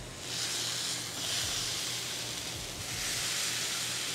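Thick ribeye steaks sizzling on the hot grill plate of a Ninja Woodfire grill set to high. The hiss swells twice as the steaks are pressed down onto the grates for a hard sear.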